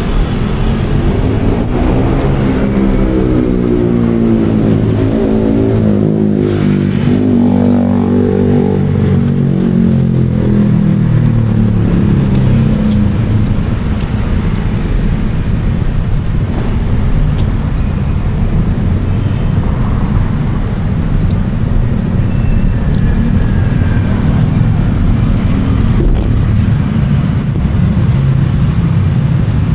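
City road traffic: a steady rumble of vehicles, with one engine's note standing out and shifting in pitch for the first dozen seconds as it revs and passes close.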